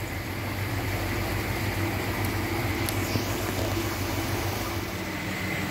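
Steady hum of koi pond filter-house equipment running, the circulation pump included, over a constant wash of moving water.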